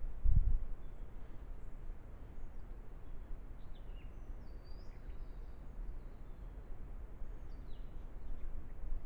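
Small birds calling in the bush: scattered short, high chirps and quick whistled notes, faint over a low steady rumble, with one dull thump just after the start.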